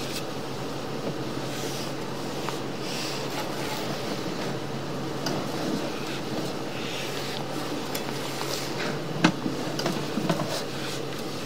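A sewer inspection camera's push cable and reel being worked, with scattered metallic clicks and clanks over a steady low hum; the sharpest clanks come about nine and ten seconds in.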